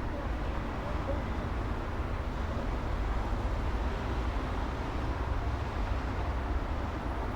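City street traffic: a steady low rumble of vehicles, with no single event standing out.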